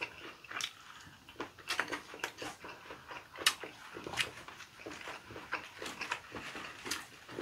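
People eating lettuce-wrap rice (ssambap): chewing and mouth smacking with irregular short clicks of chopsticks and food handling.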